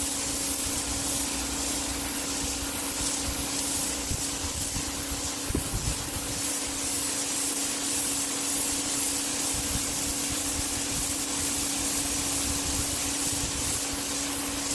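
Electric pressure washer running with the trigger held: the pump motor gives a steady hum under the hiss of the water jet blasting concrete. The pump runs only while the trigger is pulled.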